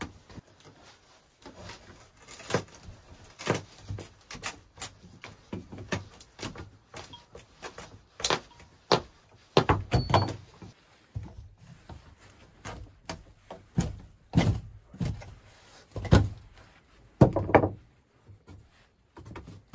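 A series of irregular knocks and thuds at uneven intervals, some sharp and some dull, the loudest coming in the second half.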